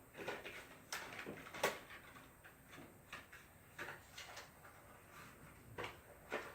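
Faint, irregular clicks and knocks of rummaging through a drawer while hunting for a bottle of blue food coloring, the sharpest knocks about a second and a half in and near the end.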